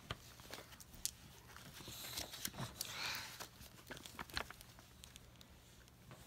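A book page being turned and handled: a soft paper rustle about two seconds in, with scattered light clicks and taps.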